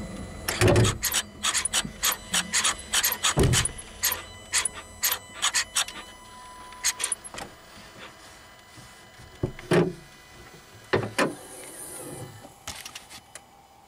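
Handling noise from a camera wedged in a pickup's engine bay: a quick run of sharp clicks and knocks with rubbing, and a few heavier thumps, as the hood is opened and the camera is moved about. No engine is heard running.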